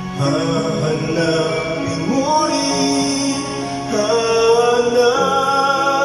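A man singing into a handheld microphone over backing music, holding long notes that step up in pitch.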